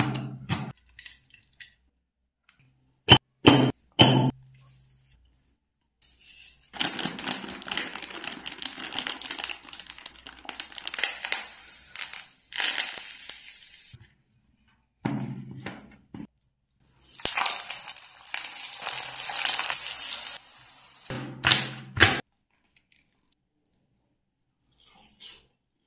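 Kitchen sounds of pakoda making: a knife chopping coriander on a cutting board, a few sharp knocks, and two long stretches of hissing noise, with more sharp clatter near the end.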